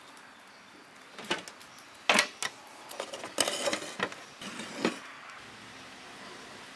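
Knife scoring cuts into a whole fish lying on a metal tray: a handful of short, irregular scrapes and knocks.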